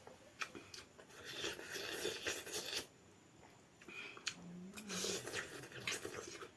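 Close-miked eating: chewing, with scattered clicks and scraping of utensils. A brief hummed 'mm' comes about four and a half seconds in.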